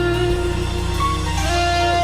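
Live worship band music: long held lead notes, guitar-like, sliding between pitches over a steady bass line.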